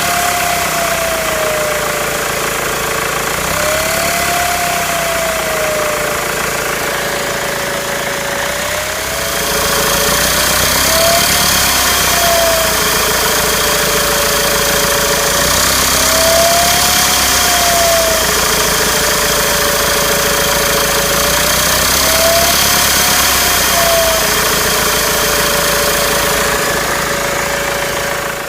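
BMW 320d M47 four-cylinder turbodiesel idling with a loud whistle. It is blipped about five times, each blip lifting the whistle's pitch briefly before it settles back. This is the whistle under diagnosis, present at all rpm. About nine seconds in, the sound gets louder and hissier.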